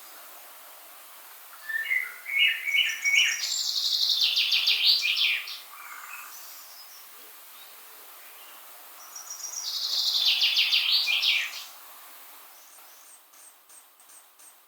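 A songbird singing in woodland: two song phrases several seconds apart, each a fast run of high notes lasting a couple of seconds, the first opening with a few lower chirps. A faint, rapid high ticking comes in near the end.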